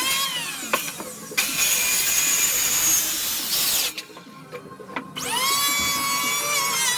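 Electric power tool working wood. It runs noisily for a few seconds, stops briefly, then spins up again about five seconds in with a rising whine that settles into a steady pitch.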